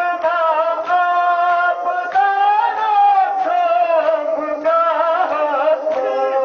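Male mourners chanting a Kashmiri nohay, a Muharram lament, in long drawn-out melodic phrases, with sharp chest-beating slaps (matam) at intervals.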